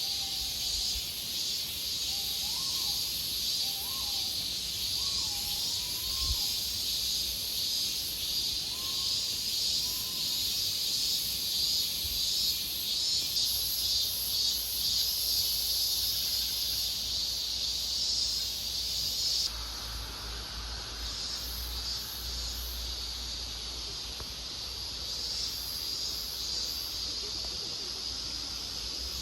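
Steady high-pitched chorus of insects droning, with a few faint short bird calls in the first ten seconds. About two-thirds of the way through, the chorus abruptly drops in level.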